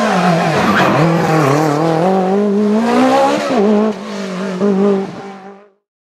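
Race car engine accelerating hard, its pitch climbing and dropping back at each gear change. Near the end a last burst of revs fades away, then the sound cuts off.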